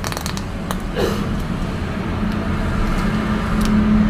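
Steady rain noise with a low hum that grows louder about two seconds in, and a few crinkles of small plastic bags being squeezed to pour out sauce.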